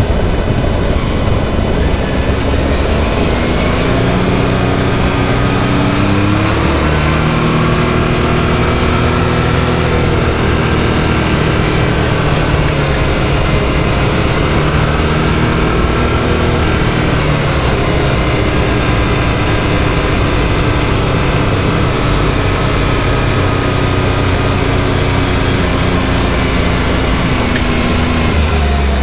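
Can-Am Maverick X3 side-by-side's turbocharged three-cylinder engine running under way, its pitch climbing a few seconds in, holding higher, then easing off near the end, over a constant rush of wind and tyre noise.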